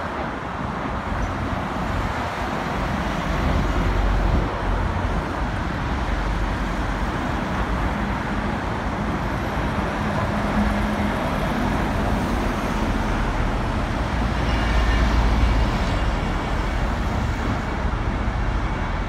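Steady road traffic on a busy dual carriageway: cars, vans and heavy lorries passing, with continuous tyre noise and a deep engine rumble. The rumble swells a few times as large lorries go by, most strongly about fifteen seconds in.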